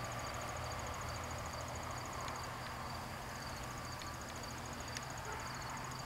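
Quiet outdoor background with insects chirping in a fast, even high-pitched pulse that pauses briefly near the middle, over a low steady hum and a few faint ticks.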